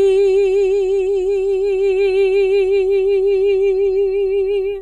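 A woman singing unaccompanied, holding the long final note of a gospel song with an even vibrato; the note stops just before the end.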